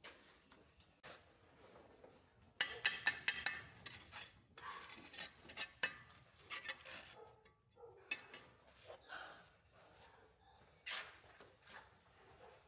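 A run of light clinks and knocks from small hard objects being handled, busiest a few seconds in, then scattered single knocks with one sharper one near the end.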